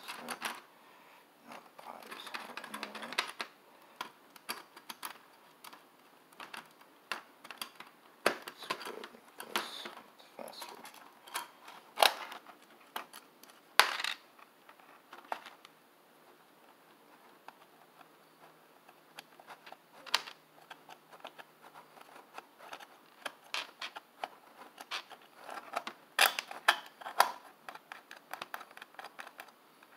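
Irregular clicks and taps of small metal screws and standoffs handled against a clear acrylic plate during hand assembly, with a few sharper knocks scattered through.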